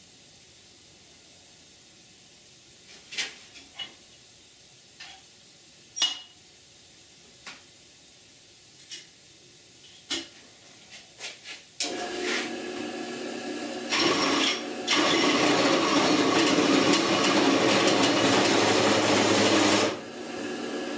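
Scattered clicks and knocks of a clamp and a steel piece being handled, then about twelve seconds in a drill press motor starts running. From about fifteen seconds a hole saw, spun without its pilot bit, cuts loudly into the clamped steel piece for about five seconds; then the cutting stops and the motor runs on.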